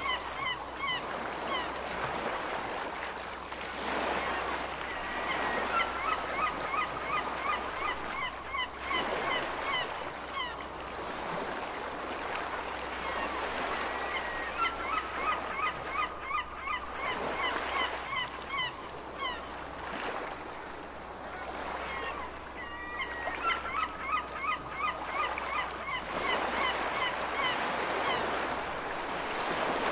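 Seagulls calling in runs of quick, short cries, some falling in pitch, that come back every few seconds over a steady wash of ocean waves swelling and easing.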